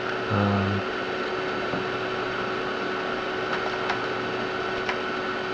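Steady whine and hum of an Amiga 4000's hard drive and power supply running, with a short low hum about half a second in and a few faint clicks later on.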